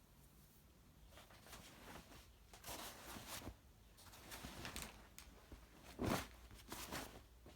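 Faint rustling and brushing of a Nomex flight jacket being handled, in a run of short strokes with a louder one about six seconds in.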